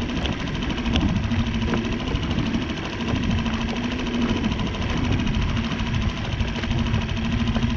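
Small Mercury outboard motor running steadily at trolling speed, a constant even hum.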